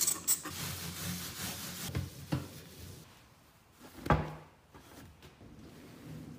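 Scrubbing or wiping on a stainless steel sink draining board, a hissing rub that lasts about two seconds. It is followed by a few light knocks, the loudest about four seconds in.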